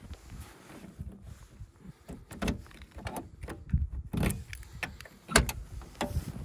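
Lada Niva door being unlocked and opened by hand: keys jangling and a key working in the door lock with a series of sharp clicks, then a louder click of the latch releasing as the door is pulled open near the end.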